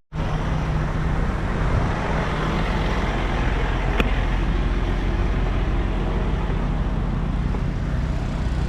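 A motor vehicle running steadily, an even engine hum and rush, with a single sharp click about four seconds in.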